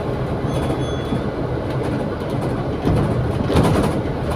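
Interior running noise on the upper deck of a double-decker bus: a steady engine drone with tyre noise on a wet road, and a brief clatter of rattles and knocks about three and a half seconds in.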